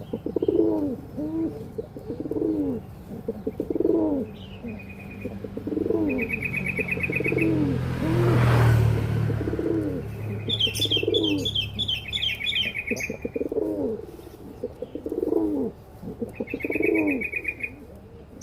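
Domestic pigeons cooing over and over, about one coo a second, with quick high chirping trills from small birds at intervals. A rushing noise swells and fades about halfway through.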